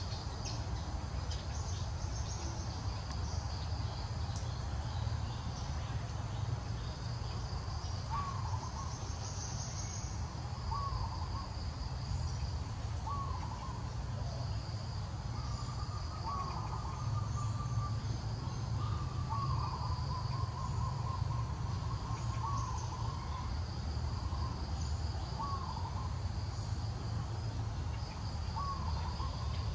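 Forest ambience: insects buzz steadily while a bird gives short, repeated calls every two to three seconds, with a couple of longer held notes midway, over a low steady rumble.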